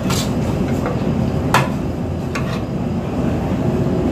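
A metal spatula scraping through onions in a large frying pan, knocking against the pan a few times in sharp clinks, over a steady low rumble.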